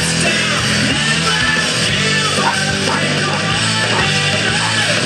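Loud rock music with electric guitar, playing steadily.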